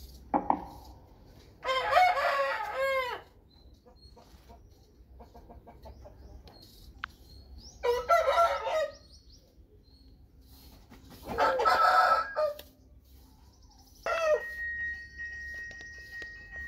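Fighting rooster crowing: three long crows several seconds apart, then a shorter call near the end.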